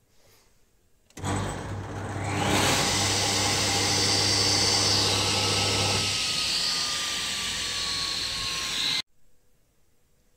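Robland combination woodworking machine's single-phase motor switched on about a second in, spinning up the saw blade to a steady hum and whoosh. About six seconds in the hum drops away and the machine winds down with a slowly falling whine, before the sound cuts off abruptly.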